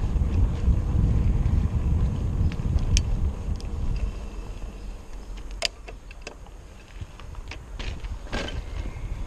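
Wind buffeting the microphone while riding a bicycle: a low rumble that dies down about four seconds in, with a few sharp clicks and rattles.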